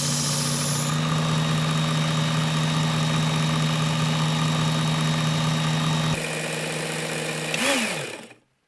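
Ken Onion Work Sharp belt knife sharpener running with a steady motor hum, with a brief hiss of the steel blade grinding on the coarse belt in the first second. Near the end it is switched off, and the pitch falls as the motor and belt spin down to a stop.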